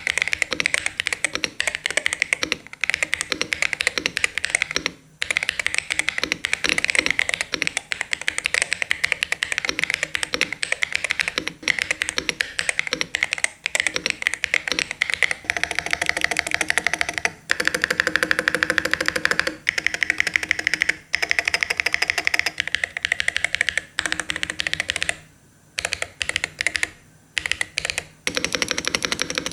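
Aula Hero 68HE keyboard with magnetic Hall-effect switches being typed on fast and continuously, a dense run of key clicks broken by a few short pauses, one about five seconds in and several near the end.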